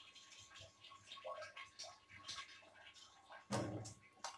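Hands swishing and rubbing dried prawns in water in a small steel bowl to rinse out sand. Near the end there is a louder splash as water is tipped from the bowl into a stainless steel sink.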